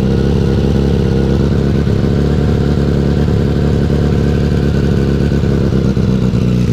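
Suzuki Bandit motorcycle's inline-four engine idling steadily while its exhaust, patched with a beer can, exhaust putty and heat wrap, is tested for leaks. A slight leak remains at the top of the patch.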